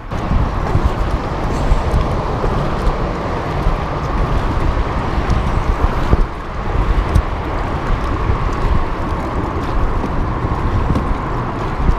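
Wind buffeting an action camera's microphone over water rushing along a kayak hull as the kayak is paddled; a loud, steady rush with no distinct strokes.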